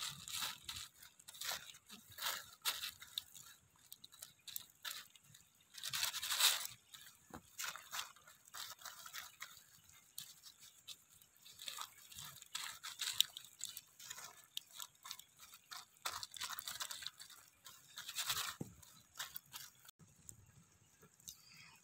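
Thin plastic sheet crinkling and rustling under hands kneading a spice marinade paste, with irregular crackles and a louder stretch about six seconds in.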